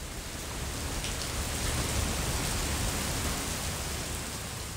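Heavy rain coming down in a steady hiss, with wind rumbling on the microphone.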